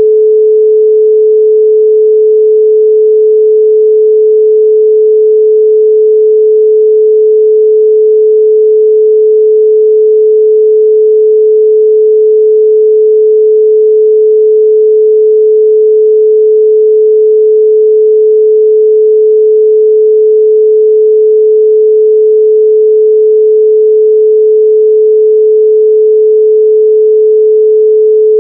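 A loud, steady 432 Hz pure sine tone, held unchanging with no other sound.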